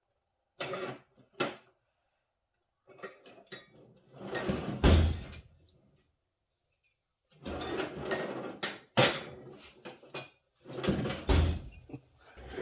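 Metal tools clattering and clanking as a tool drawer is rummaged through, with a few sharp, louder knocks.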